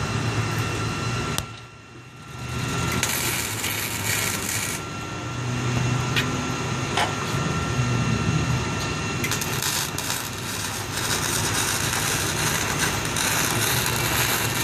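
Electric arc welder buzzing and crackling with a steady low hum while welding a seam on a sheet-metal roof curb, the arc pausing briefly about two seconds in.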